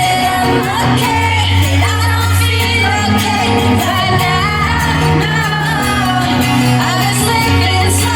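Live pop-rock band playing at full volume, with a woman singing the lead melody over sustained bass notes.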